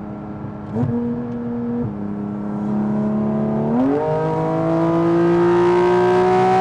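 Porsche 718 Cayman GT4 RS's 4.0-litre flat-six running through a Fi-Exhaust valved muffler and catless downpipe. The engine pitch jumps up about a second in and drops back a second later, then steps up again near four seconds and climbs steadily as the car pulls in gear.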